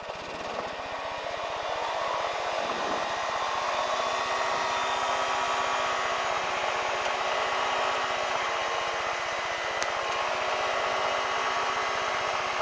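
Light aircraft's piston engine running, picking up speed and getting louder over the first couple of seconds, then holding a steady drone.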